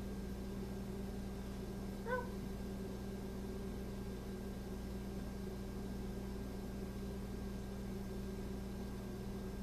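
A Chihuahua gives one short, high whine about two seconds in, over a steady low hum.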